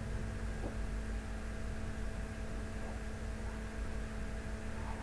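Steady electrical hum with several held tones over a low rumble and a faint hiss: the recording's background noise, with nothing else happening.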